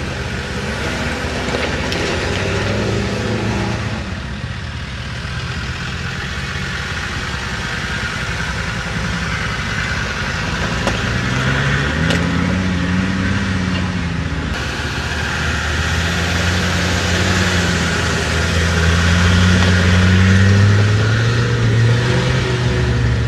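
4x4 engines revving in soft desert sand, the pitch rising and falling with the throttle. In the second half a Land Rover Defender's engine pulls hard under load as it climbs a sand dune, loudest a few seconds before the end.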